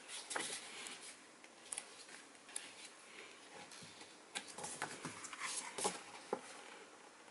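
Heavy glossy pages of a printed instruction booklet being turned by hand: a run of short paper rustles and flaps, several near the start and a busier cluster between about four and six seconds in.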